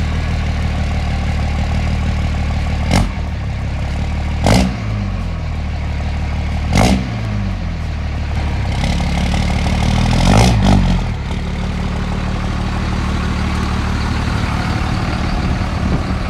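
Third-generation Dodge Ram's 5.9 Cummins diesel idling, with four short throttle blips that each rise and fall quickly; the last, about two-thirds of the way through, is the longest.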